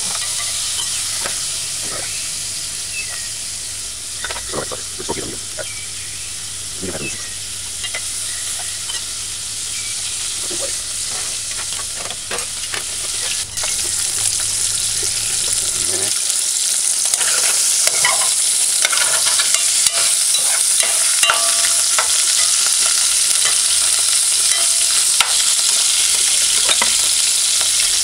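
Chopped food frying in hot oil in a metal pot: a steady sizzle that grows louder about halfway through, with a slotted metal spoon scraping and stirring against the pot.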